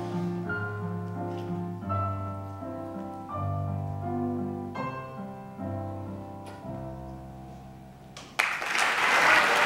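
Electronic keyboard with a piano sound playing a slow piece in held chords, the last chord fading away. About eight seconds in, applause breaks out, louder than the playing.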